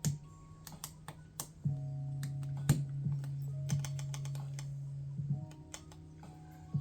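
Irregular sharp plastic clicks and clacks of PBT keycaps being pushed onto a mechanical keyboard's switches, with a quick run of clicks near the middle, over soft background music.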